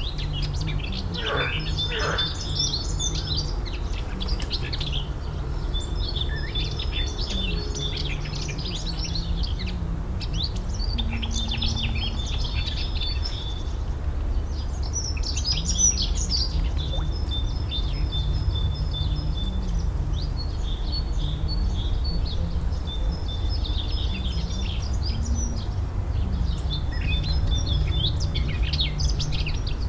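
Several songbirds singing at once, with overlapping chirps and trills, over a steady low rumble.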